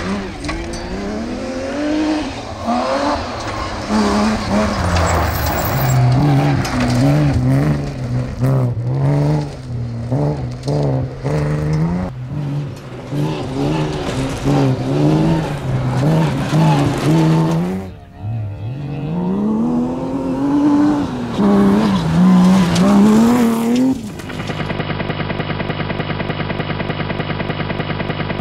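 BMW 325 rally car's straight-six engine revving hard up and down through gear changes on a gravel stage, with a brief sharp drop in revs near two-thirds of the way through before it climbs again. Near the end the engine gives way to a steady, fast-pulsing hum from a camera drone's propellers.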